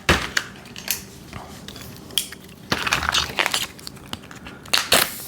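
Plastic packaging crinkling and crackling in irregular bursts as a vacuum-sealed pack of welding wire is handled and torn open.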